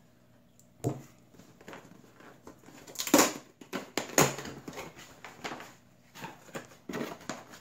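A cardboard shipping box being slit open with a knife and its flaps pulled open: a sharp tap about a second in, then scraping, tearing and rustling of cardboard, loudest about three and four seconds in.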